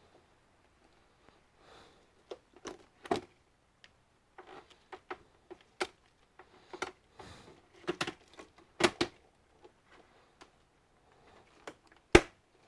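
Irregular plastic clicks, taps and scrapes from prying at the clips of an HP all-in-one computer's plastic casing, ending in one loud sharp crack near the end.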